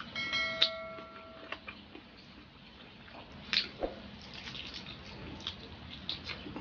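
Wet eating sounds: lip smacks and sticky chewing clicks as chicken asado is eaten by hand. Near the start, a click and a short bell-like chime of an on-screen subscribe-button animation ring for about a second and a half.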